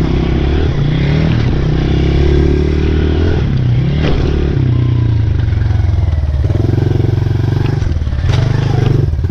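Pit bike's small single-cylinder engine running as it is ridden along a dirt trail, its pitch rising and falling repeatedly with the throttle. There is a sharp clatter about four seconds in, and brief dips with clicks near the end.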